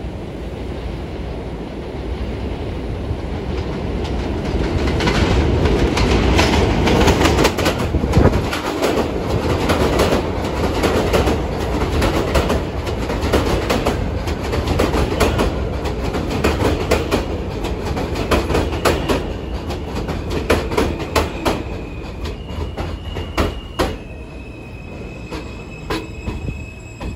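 An R160A-2 New York City subway train pulls into an elevated station. Its rumble and wheel clatter over rail joints and switches build up and stay loud through the middle. In the last few seconds a steady high squeal sounds as the train slows to a stop at the platform.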